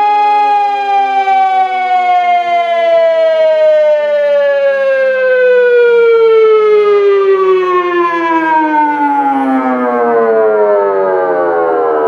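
Czech Siren Tech HOWLER-M electronic siren: its steady tone turns, about half a second in, into one long, slow downward glide in pitch, running down like a motor siren at the end of the test tone.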